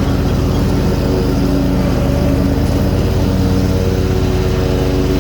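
Kawasaki 21.5 hp V-twin engine of a Hustler Raptor zero-turn riding mower running steadily under load, with the mower blades engaged and cutting wet grass.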